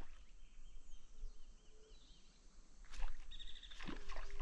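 Birds calling, with repeated short chirps and a fast pulsed trill in the last second or so, over a low rumble of wind; a sharp knock about three seconds in and another about a second later.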